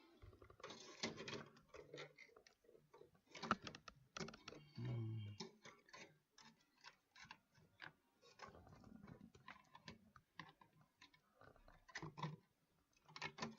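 Faint scattered clicks, light knocks and a short scrape of computer hardware being handled as a graphics card is fitted into a PC case.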